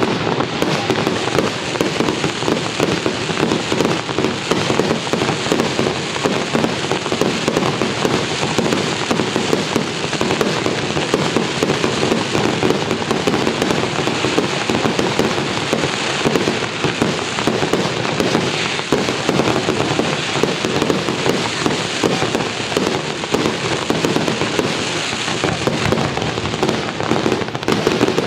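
Fireworks display: a dense, continuous barrage of aerial shell bursts and crackling, with no pause.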